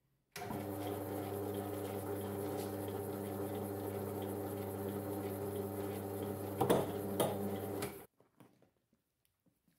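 Small benchtop metal lathe running with a steel rod spinning in its three-jaw chuck: a steady motor hum that starts suddenly just after the beginning and cuts off after about eight seconds. Two sharp knocks, the loudest sounds, come near the end.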